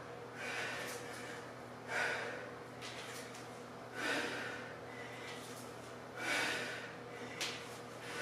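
A woman's forceful breathing during kettlebell swings: a sharp, airy exhale about every two seconds in time with each swing. There is a brief click between breaths, the sharpest near the end.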